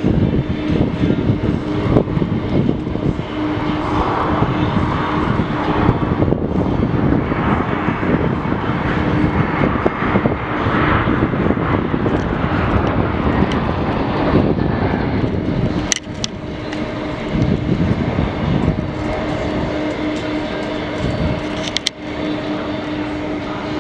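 Jet engines of a Boeing 747-400 freighter running loud and steady, a rumbling roar with a steady hum beneath it. Two short sharp clicks in the second half.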